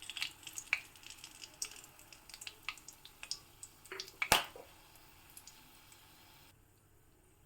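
Whole spices and dried red chillies crackling and spitting in hot mustard oil in a kadai as a tempering fries: scattered small pops, one sharp louder pop about four seconds in, then the crackling dies away near the end.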